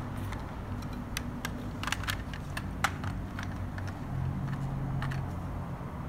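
Light plastic clicks and taps, a dozen or so scattered over about five seconds, as a 1985 Kenner M.A.S.K. Jackhammer toy truck is handled: the figure fitted into the driver's seat, the door snapped shut, and the toy set down on a tile floor. A low steady hum runs underneath.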